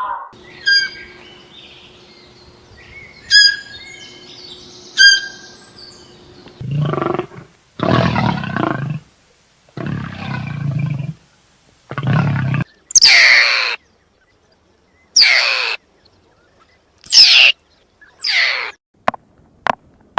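A series of recorded animal calls: a few short pitched blips, then four low, rough calls, each about a second long, then four high calls that each fall steeply in pitch.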